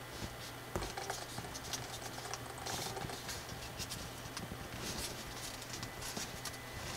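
Thick coloured drawing paper rustling and crinkling in the hands as an origami pig is folded and creased, with many small crackles and taps. A sharper knock comes a little under a second in.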